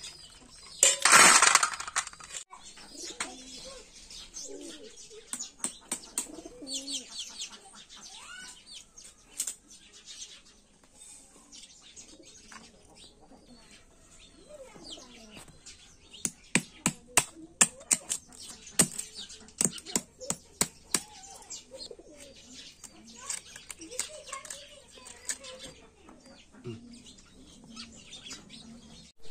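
Sharp clicks and cracks of freshwater snail shells being broken open by hand against a concrete floor, in quick irregular runs, thickest past the middle. A brief loud rustling burst comes about a second in.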